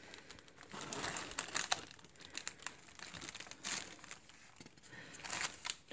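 Plastic air-cushion packaging and tissue paper crinkling and rustling in irregular bursts as a spiral-bound planner is shifted and lifted in its box.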